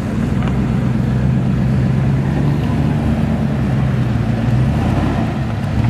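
SUV engines running steadily with a low hum as a convoy, a Hummer H2 among them, drives slowly close by over rough ground.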